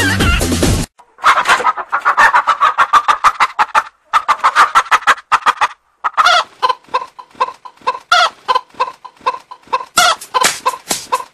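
Music cuts off about a second in. Then a chicken clucks in quick runs of short repeated calls, several a second, broken by two brief pauses.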